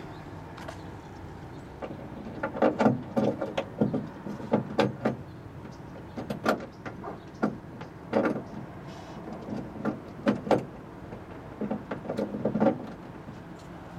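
Irregular sharp metallic clicks and knocks as a car door lock cylinder is pried and worked into place in the door with a socket used as a lever, the lock having been binding.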